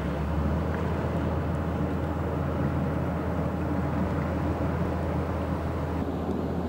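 Inland tanker barge's diesel engine running steadily as the vessel passes close, a low hum under a broad rumble.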